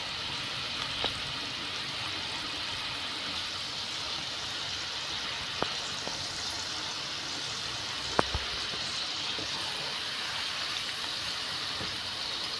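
Okra strips coated in gram-flour batter deep-frying in hot oil in a kadai over medium heat: a steady sizzle, with a few sharp clicks, the loudest about eight seconds in.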